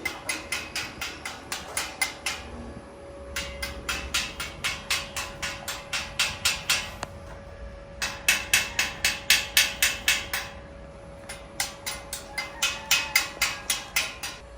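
Chipping hammer knocking slag off a fresh stick-weld bead on steel, rapid sharp taps about five a second in four runs with brief pauses. Clearing the slag is the step that exposes the finished weld for inspection.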